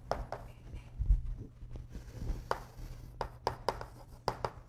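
Chalk on a chalkboard: a series of sharp taps and short scrapes as letters are written. A low thump sounds about a second in, with a softer one a little after two seconds.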